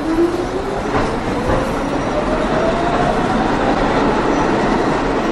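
A New York City subway train pulling out and accelerating, its traction motors whining steadily higher in pitch over the rumble and rattle of the cars, with a clank about a second in.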